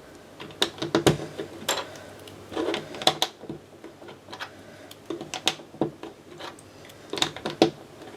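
Lego bricks clicking and rattling as plastic pieces are handled and pressed together: irregular sharp clicks, some in quick clusters.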